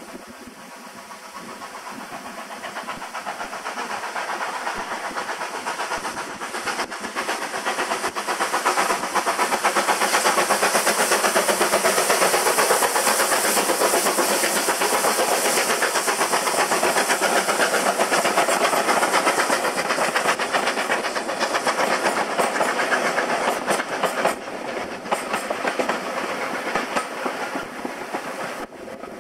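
GWR 5101 class 2-6-2T steam tank locomotive No 5199 approaching and passing with its train of coaches. The sound builds steadily, peaks with the wheels clattering over the rail joints, and fades as the train goes away.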